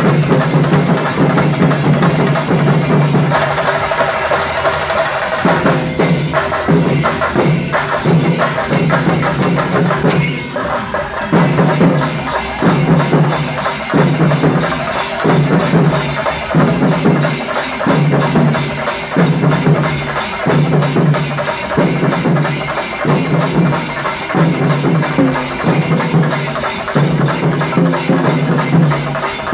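Chenda melam: a large ensemble of chenda drums beaten with sticks in a dense, driving rhythm, its heavy accented beats falling about once a second. The playing thins briefly about ten seconds in, then picks up again.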